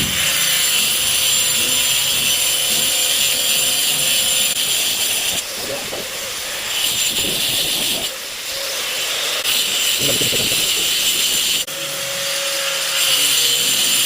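Angle grinder cutting into a Litepanel wall panel, running continuously with a loud hiss and whine. Its sound drops back briefly about five and a half, eight and eleven and a half seconds in as the load on the blade changes.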